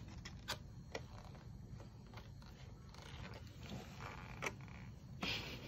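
Faint clicks and crinkling of a clear plastic blueberry clamshell as a baby's fingers poke and scratch at its lid, with a few sharp clicks and a louder rustle near the end.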